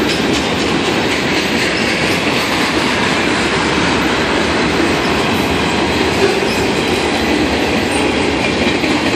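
Freight cars of a CSX manifest train rolling past at speed, the steady noise of steel wheels running over the rails without let-up.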